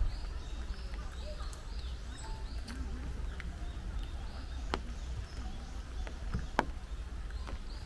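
Songbirds singing in quick runs of short, repeated high notes, with a few sharp taps of dripping rain, the loudest near the end, over a low steady rumble.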